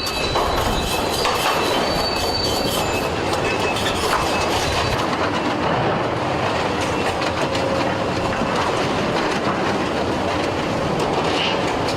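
Heavy Link-Belt demolition excavators at work: a steady din of machinery with high metallic squeals and constant clanking and crunching of metal and debris.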